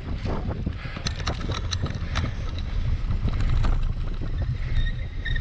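Cyclocross bike ridden over wet, muddy ground, with wind rumbling on the microphone and a quick run of sharp clicks and rattles from the bike about a second in.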